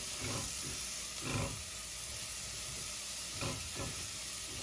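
Chopped raw green mango and spices frying in coconut oil in a pan, a steady soft sizzle. A spoon scrapes through the pan twice as the mixture is stirred.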